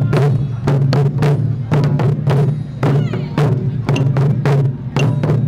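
Taiko drums struck with wooden sticks in a fast, driving rhythm, sharp hits about three a second over the drums' low ringing boom.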